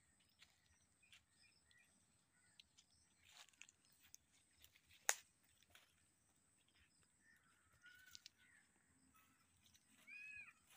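Near silence of open countryside with faint scattered bird calls, a single sharp click about halfway through, and a short bird call near the end.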